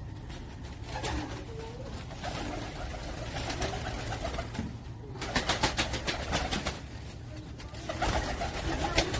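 Domestic pigeons cooing, low rolling calls about a second in and again near the end, with a quick run of sharp ticks or flutters about five seconds in, over a steady low hum.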